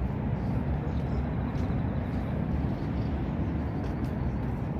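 Steady low-pitched rumble of open-air background noise, with no speech.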